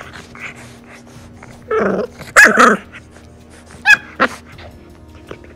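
English bulldog puppy growling and barking in play as it bites and wrestles. There are a few loud outbursts: two about two seconds in, the second the loudest, then two short sharp barks about a second and a half later.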